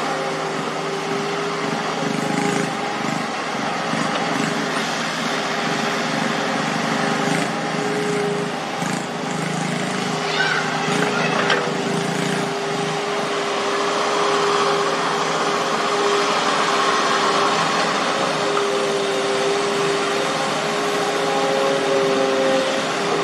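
Diesel engines of excavators working on a construction site, running steadily with held tones that waver a little in pitch. A few short knocks come about ten and eleven seconds in.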